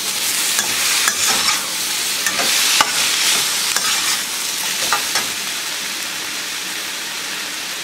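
Chicken, peppers, onions and celery sizzling in a hot carbon steel wok while a metal wok spatula stirs them, scraping and clinking against the wok now and then. Near the end the stirring eases and a steady sizzle remains.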